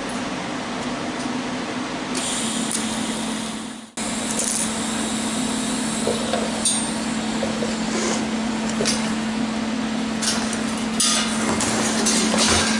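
MIG welding arc crackling and hissing as a steel part is welded, over a steady low hum; the sound drops out briefly about four seconds in. Near the end come a few sharp clicks and knocks of the metal being handled.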